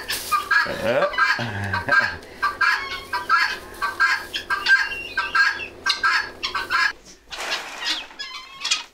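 Chickens clucking over and over, a run of short calls a few per second, with a lower falling call about a second and a half in.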